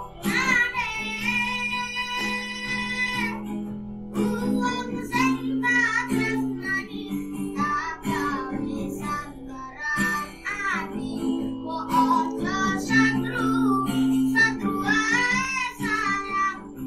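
A boy sings a Javanese song over a plucked acoustic guitar, unamplified. He holds a long note from about half a second in to past three seconds, and the later phrases waver with vibrato.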